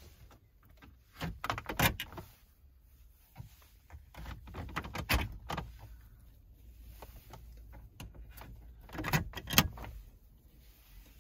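Metal radio removal keys clinking in the hand and clicking as they are pushed into the slots of a Volkswagen factory radio, the RNS MCD head unit. Scattered short clicks and knocks come in three small bunches.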